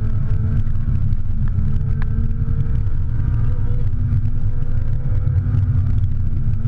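Ferrari 458 Italia's V8 and road noise heard inside the cabin at speed, the engine held at fairly steady revs with a deep, even drone.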